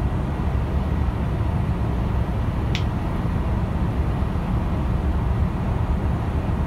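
Steady low rumble of a Boeing 787-8's engines and rushing airflow, heard inside the cabin in flight. A single brief high click sounds about three seconds in.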